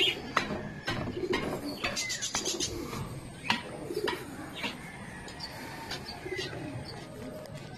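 Racing pigeons cooing, with a few scattered knocks.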